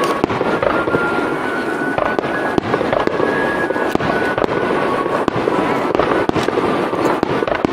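Star mine fireworks barrage: a dense, unbroken rapid fire of shell bursts and crackling, with no pause.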